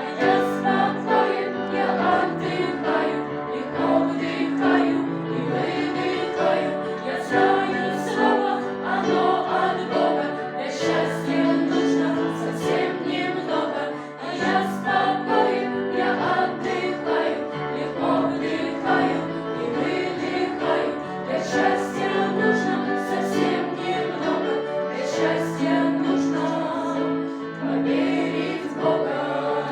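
Choral singing with musical accompaniment: a sacred-sounding choir piece with held chords and a steady beat.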